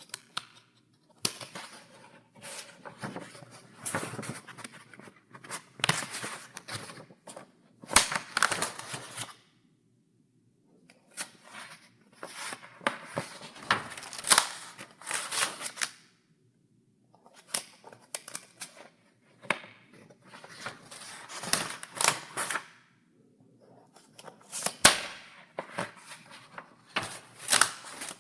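Paper pages of a file being turned one after another, each a dry rustle ending in a sharp snap as the sheet flips over. The turns come in runs with brief pauses between them.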